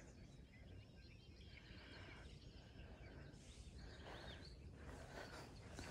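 Faint birds chirping and calling over quiet outdoor ambience with a low, steady rumble.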